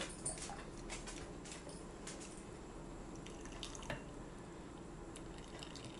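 Cooking water draining from a stainless steel pot into a glass, a faint thin trickle and drips, with a few light ticks.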